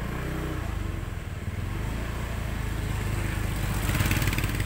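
Small motorbike engine running as it rides slowly along a lane. Its pitch rises and falls in the first second or so as the throttle changes, and a hiss swells about four seconds in.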